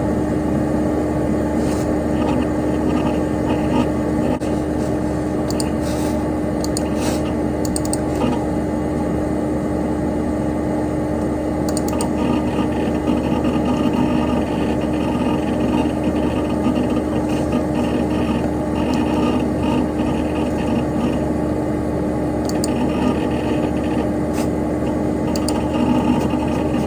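Dell Dimension XPS P100c desktop computer running: a steady whir and hum from its cooling fan and spinning hard drive, with scattered faint clicks and ticks of hard drive activity at irregular moments.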